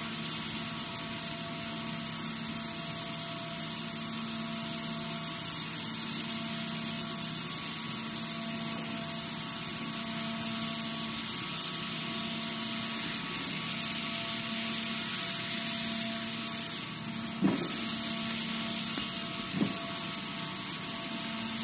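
CNC wire saw cutting machine running as its wire cuts through stacked corrugated cardboard: a steady mechanical hum with a hiss, and a couple of short knocks a few seconds before the end.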